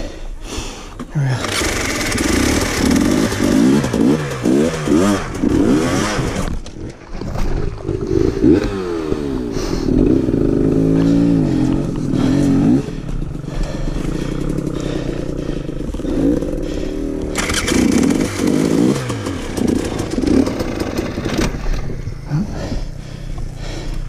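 KTM dirt bike engine revving hard in three long bursts, the pitch rising and falling as the throttle is worked, and settling to a lower steady run between bursts. The bike is struggling up a rocky ledge and getting stuck.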